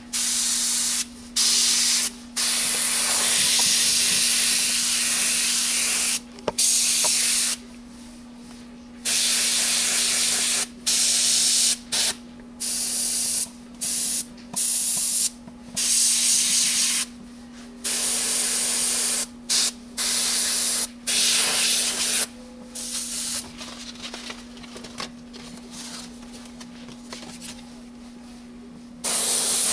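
Airbrush spraying paint, its hiss starting and stopping sharply as the trigger is pressed and released: sprays of several seconds at first, then a run of short spurts, then a pause of several seconds before it sprays again at the very end. A steady low hum runs underneath.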